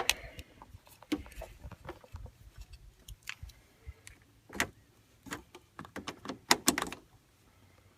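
Jumper-cable clamps being attached to a vehicle battery's terminals: a series of irregular sharp metallic clicks and knocks, with the loudest cluster near the end.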